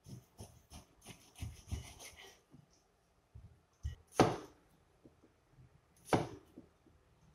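Knife slicing pork on a plastic cutting board: a quick run of light taps and scrapes over the first two and a half seconds. Then a cleaver chops a garlic clove on the board, two loud sharp knocks about two seconds apart.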